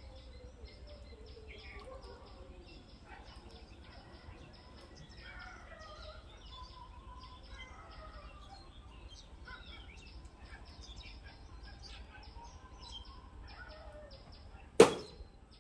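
Birds chirping and calling: many short, high chirps repeating, with some lower gliding calls. A single loud knock sounds near the end.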